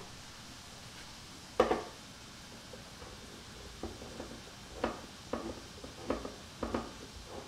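A single sharp knock about one and a half seconds in. Then a handheld manual can opener is cranked around a can of sauce, clicking about twice a second as it cuts the lid.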